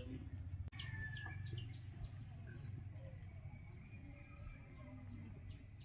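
Short, high bird calls, several in a row in the first two seconds, over a steady low rumble.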